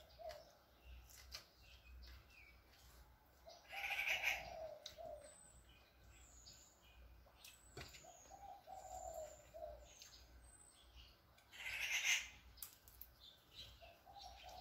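A dove cooing from outside, a short phrase of low coos repeated about every four and a half seconds, with thin high chirps of smaller birds between. Two louder brief crunches, about four and twelve seconds in, are crisp fried food being chewed.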